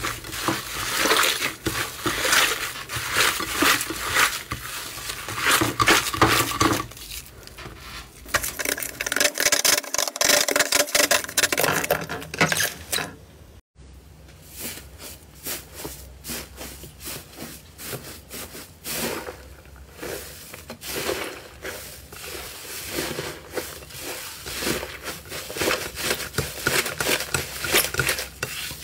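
Hands squeezing and kneading a crumbly, airy slime: dense wet crackling and popping as the slime is pressed and pulled apart. There is a brief break in the sound about fourteen seconds in.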